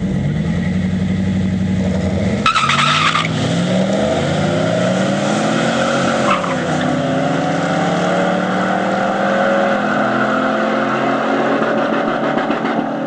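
Two street-race cars holding revs at the start line, then launching about two and a half seconds in with a short burst of tire noise. Their engines then accelerate hard away, climbing in pitch through several gear changes before levelling off.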